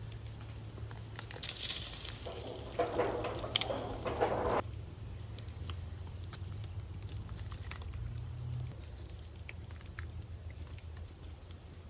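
Pot of beef-bone broth bubbling and crackling on the stove over a steady low hum, with a louder splashing, crackly burst for about three seconds near the start.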